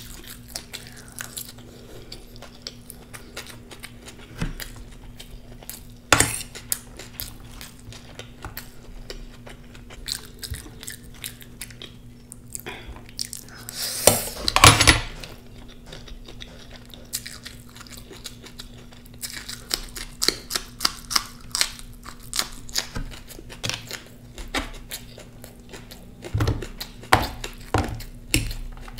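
A person eating close to the microphone: utensils click and scrape against the dish, with chewing and crunching in between. The loudest clatter comes about halfway through, over a steady low hum.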